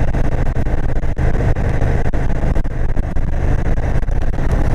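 Indian Super Chief Limited's Thunderstroke 116 V-twin running steadily as the bike rides along, mixed with wind noise rushing over the rider's microphone.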